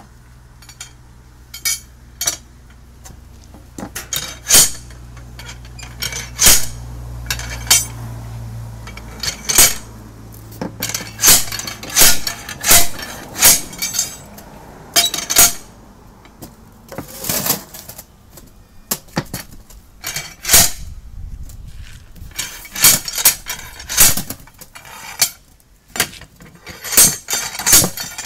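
Steel tyre bar of a manual tyre changer clanking and clinking against an alloy wheel rim and the changer's centre post as it is levered around to pry the tyre bead over the rim. The metal strikes come irregularly, several close together at a time.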